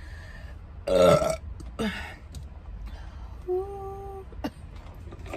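A woman burping: a deep, loud burp about a second in, with a shorter burp just after it. A brief, steady-pitched vocal sound follows near the middle.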